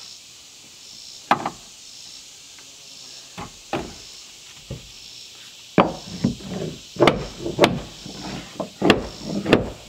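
Wooden knocks from a board being fitted and fastened under the eaves of a plank-sided outhouse. A few scattered knocks come first, then a quicker run of louder strikes in the last four seconds.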